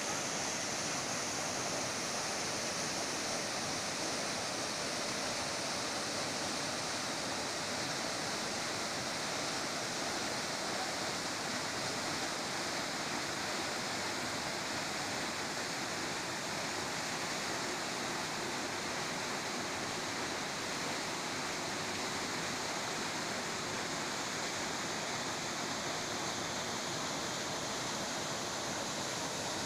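Waterfall pouring over rock ledges into a pool, a steady rush of falling and churning water that holds an even level throughout.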